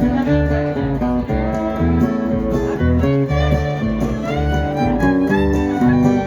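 Live band playing an instrumental passage: guitar and fiddle over a steady, evenly pulsing bass line.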